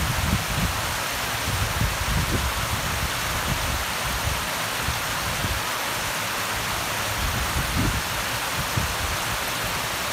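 Flowing water rushing steadily, with irregular soft low thumps underneath.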